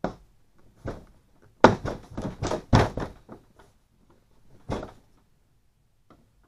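Plastic deck hatch on a kayak being pressed into its opening and its lid worked shut and open: a series of knocks and thunks, with a quick run of loud ones in the middle and a lighter click near the end.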